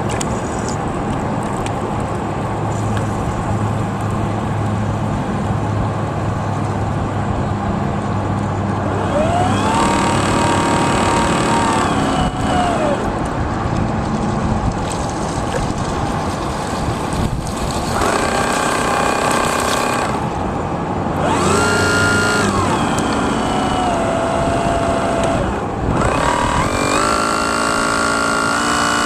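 Radio-controlled model boat motors whining on the water. The whine rises as the throttle opens, holds, and falls again, in several bursts from about a third of the way in, over a steady noisy background.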